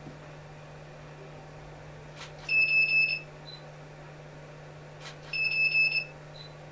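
High-pitched electronic beeping, heard twice: each time a quick fluttering run of beeps lasting about half a second, preceded by a faint click, over a steady low hum.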